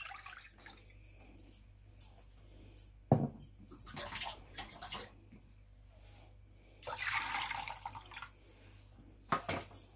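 Cold water poured into a large ceramic bowl: a short, faint pour at the start and a longer splashing pour of about a second and a half near the end. A single sharp knock about three seconds in is the loudest sound.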